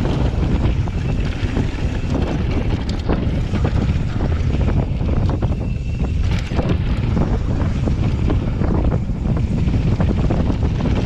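Wind buffeting an action camera's microphone on a mountain bike descending a dirt trail at speed, with the tyres running over dirt and frequent small clicks and rattles from the bike over bumps.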